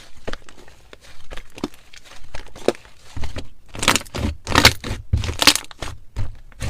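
Metallic slime mixed with ice being squeezed and worked by hand: a run of short crisp clicks and crackles, with louder crunchy bursts from about three seconds in.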